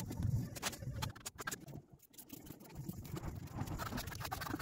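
Steel plastering trowel scraping over wet plaster on a wall in a run of quick strokes, with a quieter pause about halfway through.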